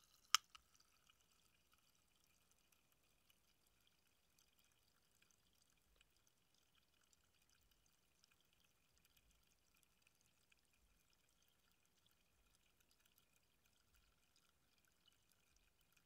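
A short click just after the start, then the faint, steady crackle of carbonation fizzing in a freshly opened aluminium soda can.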